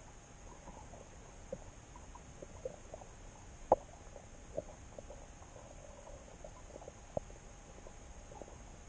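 Muffled underwater ambience picked up by a submerged camera, with scattered sharp clicks and pops, the loudest about three and a half seconds in.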